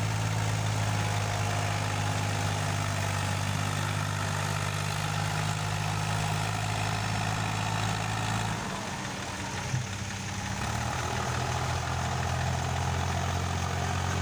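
Farm tractor's diesel engine running steadily while hauling a soil-loaded trailer stuck in mud. About two-thirds of the way through its note drops and wavers for a couple of seconds, with a single knock, then steadies again.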